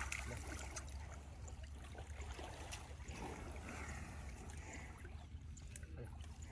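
Faint sloshing and trickling of muddy pond water as water buffaloes wallow and a hand splashes near one's face, over a steady low rumble.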